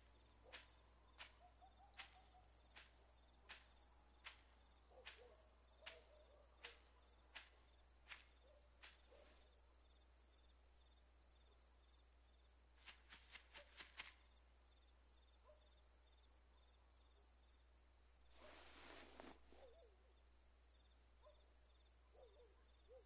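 Crickets chirping steadily in a quiet night ambience. A string of soft, regular clicks runs through the first half, a quick cluster of clicks comes about two-thirds in, and there is a brief hiss-like burst later.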